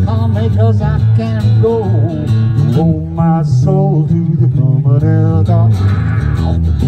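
Live acoustic guitar and electric bass guitar playing a slow country song, with a wavering melodic line over a steady bass line.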